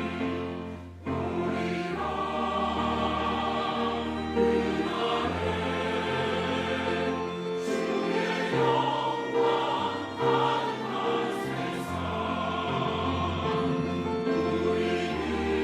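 Church choir singing a Korean anthem with instrumental accompaniment, sustained notes and a steady bass line.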